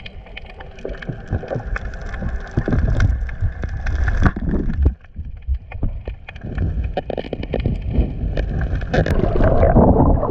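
Underwater sound picked up by a waterproof action camera during a free-dive: a muffled low rumble with dense scattered crackles and clicks, growing louder and fuller near the end.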